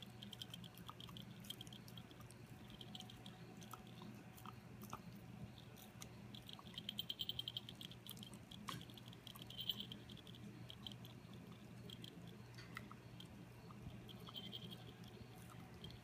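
Bichon Frise gnawing on a bully stick: faint, irregular wet chewing and clicking of teeth, coming in spells, with the loudest about seven and ten seconds in. A faint steady low hum lies underneath.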